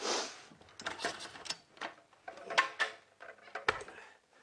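Handling noise while stretching and tucking carpet by hand: a short scraping rustle, then scattered clicks and knocks, with a duller thump near the end.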